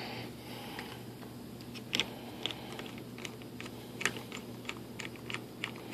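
Small hand screwdriver driving a wood screw that resists going into the wood, giving a string of light, irregular clicks about two a second from about two seconds in as it is turned hard.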